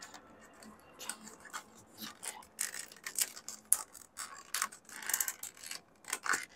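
Irregular crackling and crinkling of a clear plastic sauce sachet being torn open and squeezed over a small plastic sauce cup, close to the microphone.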